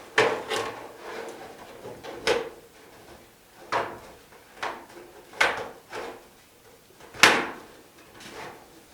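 3D printed plastic lamp-shade pieces clicking and clacking as they are handled and snapped together by their hooks, about eight sharp irregular clicks with the loudest near the end.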